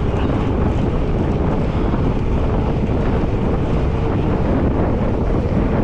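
Steady wind rumble buffeting the microphone of a bicycle-mounted camera as the bike rides along a paved road.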